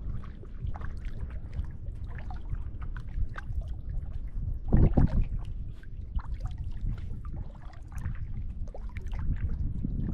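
Water trickling and dripping around a kayak, small scattered ticks over a steady low rumble, with one short louder low burst about five seconds in.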